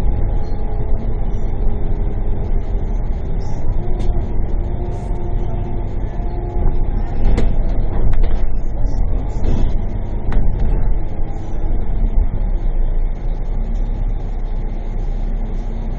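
Steady low rumble of a bus engine with road noise, heard from aboard the moving bus. A few sharp clicks or rattles come through around the middle.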